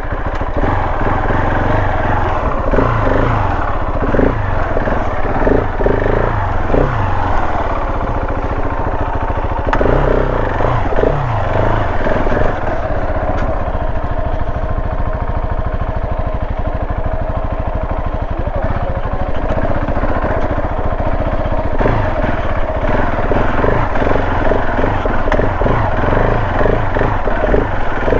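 Off-road motorcycle engine under way, its revs rising and falling again and again as the bike is ridden over rough ground.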